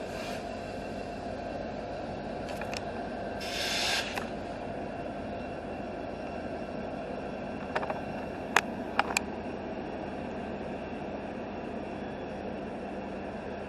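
A train runs with a steady rumble. There is a short hiss about three and a half seconds in, and a few sharp metallic clicks around eight to nine seconds in.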